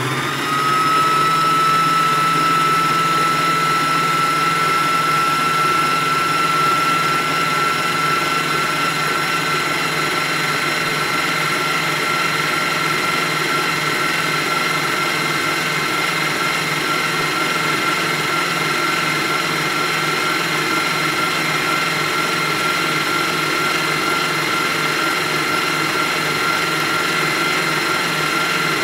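Electric stand mixer whisking eggs at speed. Its motor whine rises as it comes up to speed over about the first second, then runs steadily.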